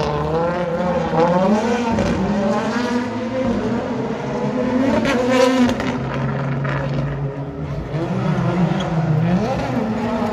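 World Rally Car's turbocharged 1.6-litre four-cylinder engine at full effort, its pitch climbing and dropping over and over as it shifts through the gears.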